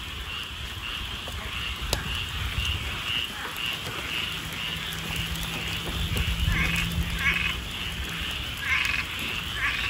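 Chorus of many frogs calling at once: a dense, steady, pulsing din with a few louder clusters of calls in the second half.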